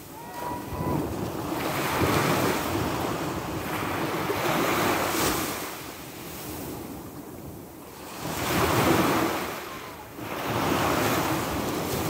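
Sea waves breaking and washing up the shore, the rush of water swelling and fading three times, a few seconds apart.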